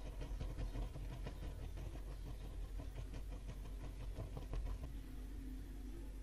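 Disposable butane lighter flame burning under heat-shrink tubing, with irregular small crackles and handling clicks that stop about five seconds in, over a steady low hum.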